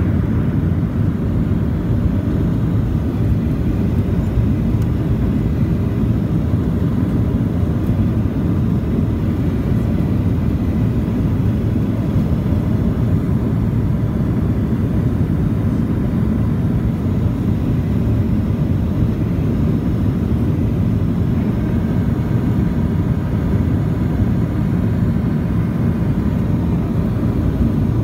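Steady low rumble of a Boeing 737's engines and rushing air heard inside the passenger cabin on the approach to landing, with a faint steady whine above it.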